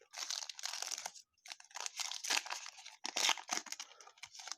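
Plastic trading-card pack wrapper being torn open and crinkled by hand, a dense run of crackling and tearing that stops just before the end.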